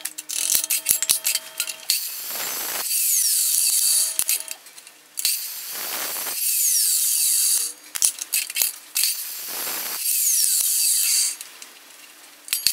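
Metal-cutting chop saw running and cutting through steel tube, several cuts in a row, each a loud, hissy grinding that drops away as the cut ends. Short knocks and clicks come between cuts as the tube is moved and clamped.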